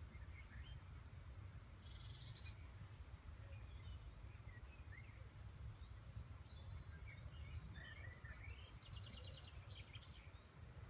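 Faint birdsong outdoors: scattered chirps, a short rapid trill about two seconds in, and a quick run of evenly spaced notes near the end, over a low steady rumble.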